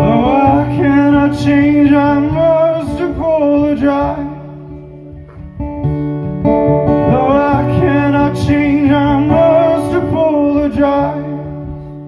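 A man singing a ballad to his own strummed acoustic guitar. He sings two phrases, with a short stretch of guitar alone in the middle.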